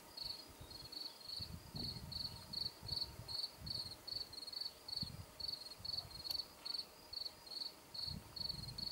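A cricket chirping steadily, about three short high chirps a second.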